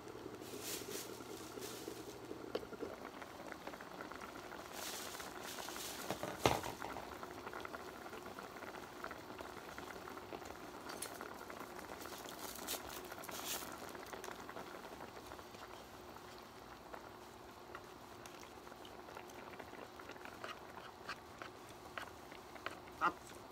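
Kimchi hot pot bubbling steadily in a pot on the cooktop, with a sharp clack about six seconds in and light clicks of wooden chopsticks against the pot near the end.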